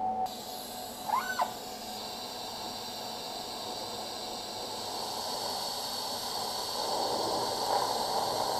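TIG welding arc running steadily, a continuous hiss with a faint high whine that grows a little louder near the end. A brief chirp sounds about a second in.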